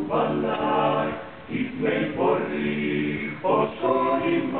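Dalmatian klapa, a male a cappella vocal group, singing several voices in harmony with long held notes, with short breaks between phrases about a second and a half and three and a half seconds in.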